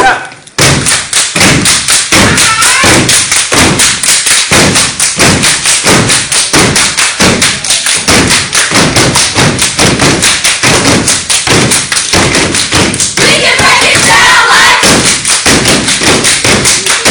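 Step team stomping and clapping in unison on a hard floor: a fast, steady rhythm of stomps and hand claps. Voices call out briefly about thirteen seconds in.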